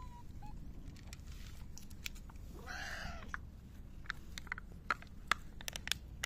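Cats crunching dry kibble, with a short meow about halfway. In the last two seconds the foil lid of a cat-food cup crackles sharply as it is peeled back.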